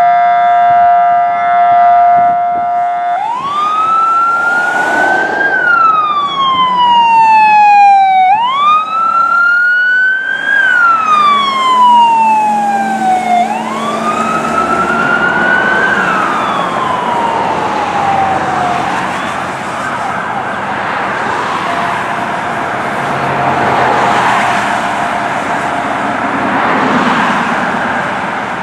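A fire truck's siren wailing in three slow cycles, each rising quickly and then falling away, after a held steady tone at the start. The wail then gives way to road and traffic noise as the truck drives off.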